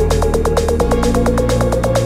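Electronic dance music build-up: a fast, even roll of hits, about a dozen a second, over a tone rising steadily in pitch, with the bass notes changing underneath.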